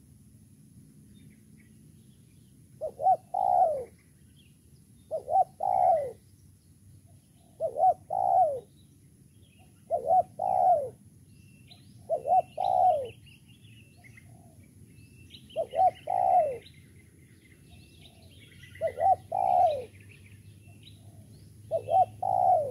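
Spotted dove (tekukur) cooing, a repeated phrase of a short note and then a longer falling note, given eight times about every two to three seconds. Small birds chirp faintly in the background.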